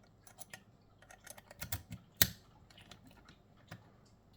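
Light clicks and taps of small metal parts, a lock cylinder and picking tools being handled, with one sharp click a little over two seconds in.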